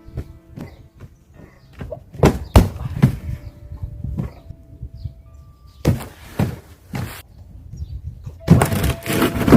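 Martial-arts training strikes landing as a series of irregular heavy thumps, a dense run of them near the end, over faint background music.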